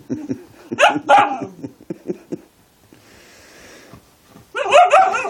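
Husky puppy vocalising in play: two sharp, pitch-bending yips about a second in and a louder run of rising-and-falling cries near the end, with quieter low grumbling between.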